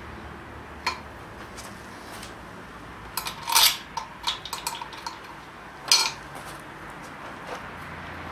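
Metal clinks and clanks of tools and parts handled while the oil pickup is fitted to a Holden 308 V8 block. There is a single clink about a second in, a run of clinks between about three and five seconds, and one loud clank near six seconds.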